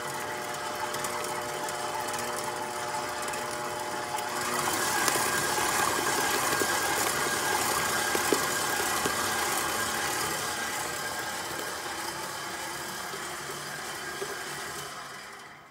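KitchenAid stand mixer running, its flat beater mixing a thick cream cheese filling in the steel bowl: a steady motor whine with several fixed tones. It gets louder, with more hiss, about four seconds in, then winds down and stops at the very end.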